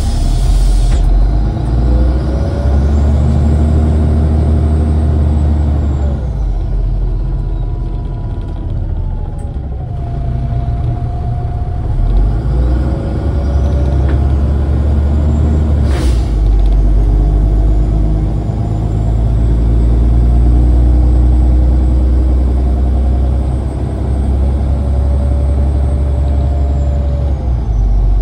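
MAZ-203 city bus heard from inside the cabin while driving: a steady low engine and road rumble, with a whine that rises, holds and falls several times as the bus speeds up and slows. A single sharp knock about sixteen seconds in.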